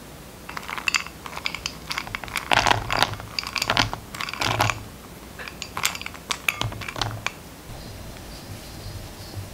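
Cold butter cubes sliding and tumbling from a small glass bowl into flour in a glass mixing bowl: a quick run of light clicks and taps on the glass. Near the end these give way to a soft rustle of fingers starting to rub the butter into the flour.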